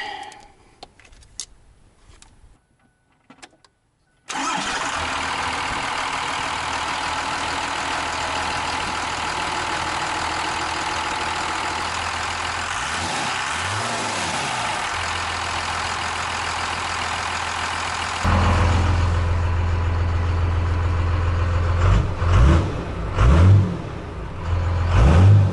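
Faint handling sounds, then from about four seconds in a 5.9-litre 12-valve Cummins diesel with a Bosch P7100 pump runs with a steady diesel clatter in the engine bay. About 18 seconds in it changes to a louder, deeper drone from inside the truck's cab, with a few quick rises in engine speed near the end.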